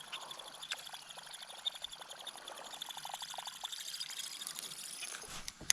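Water trickling and splashing, with a sharp knock just before the end.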